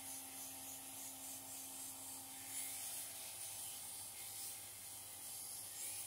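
Axminster Trade bench grinder running with a buffing wheel, a steel Eclipse 44 multiple tool pressed against it for polishing: a steady motor hum under a hissing rub of metal on the wheel that swells and eases as the piece is worked.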